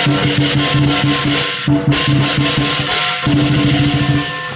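Chinese lion dance music: a drum beating rapidly with clashing cymbals, breaking off briefly about two seconds in.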